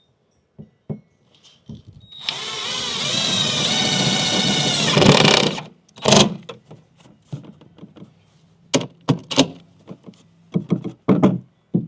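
Power drill running for about three seconds, its motor pitch wavering under load as it bores a hole, then stopping abruptly, followed by a series of sharp knocks and clatters.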